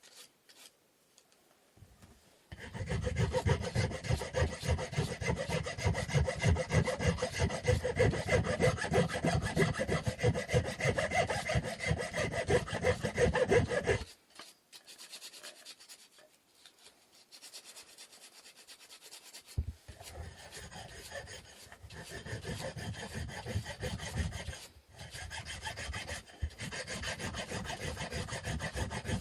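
Rapid back-and-forth rasping strokes of a hand tool working a wooden stick. The strokes start about two and a half seconds in and stop abruptly around the middle. After a pause of several seconds, lighter, broken stretches of strokes follow.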